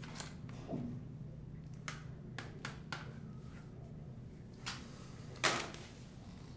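Plastic DVD cases clicking and clacking as they are handled and shuffled, a scatter of light clicks with one louder clack about five and a half seconds in, over a low steady room hum.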